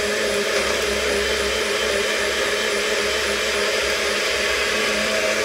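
NutriBullet personal blender running steadily at full speed, blending a smoothie, with a steady motor hum. It cuts off near the end as the cup is released, and the sound winds down.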